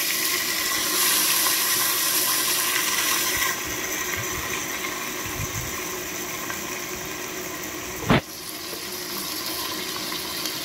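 Onions and tomatoes sizzling in hot oil in a pan: a steady hiss that drops a little about three and a half seconds in. There is one sharp knock about eight seconds in.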